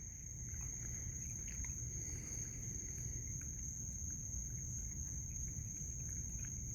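Raccoon chewing and smacking on pecans and grapes, heard as faint scattered small clicks. Under it run a steady high drone of night insects and a low rumble.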